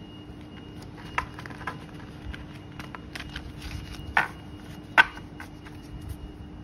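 A deck of tarot cards handled in the hand: cards slid and squared, with a few sharp snaps and taps, the loudest two about four and five seconds in, over a faint steady hum.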